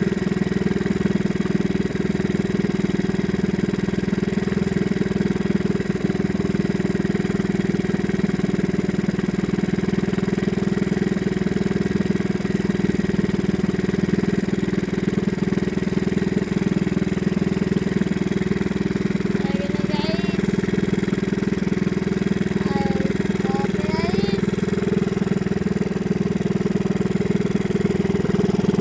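Small fishing boat's engine running steadily at a constant speed. A voice is faintly heard a couple of times about two-thirds of the way through.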